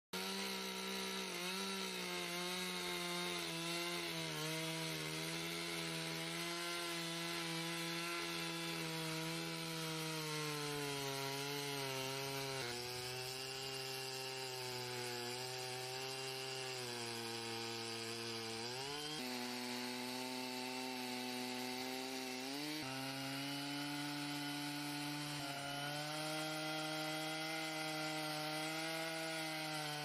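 Gas chainsaw mounted on an Alaskan-style chainsaw mill running under load, ripping lengthwise through a log. A steady high engine note that sags and recovers in pitch several times as the cut's load changes.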